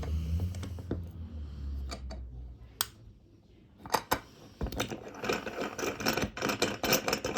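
Small hard clicks and rattles of a watch case being worked in a hand crystal press: one sharp click just under three seconds in, then a quick run of small clicks and clatter near the end.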